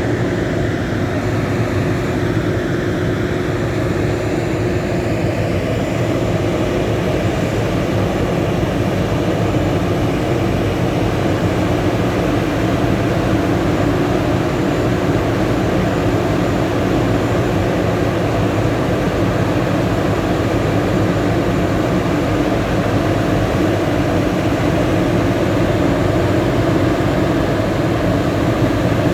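Atlas Copco Powercrusher PC1375i self-propelled impact crusher running, its CAT diesel engine and machinery droning steadily. A faint whine shifts in pitch during the first few seconds.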